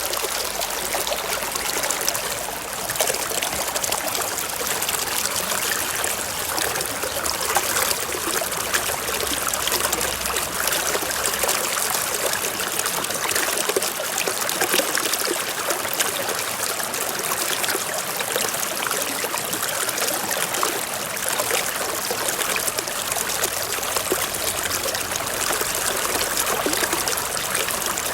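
A small stream running and trickling over rocks: a steady babble of water.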